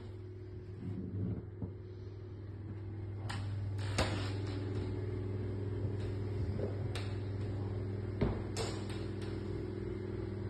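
A steady low electrical hum runs throughout, growing a little louder about three seconds in, with several short sharp clicks and knocks scattered through it.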